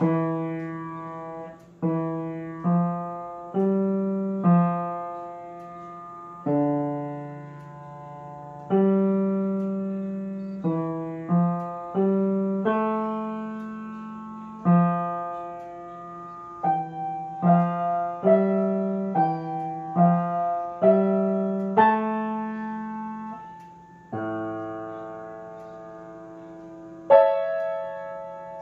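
Grand piano played solo: chords struck one after another, each ringing and fading, a few held for several seconds.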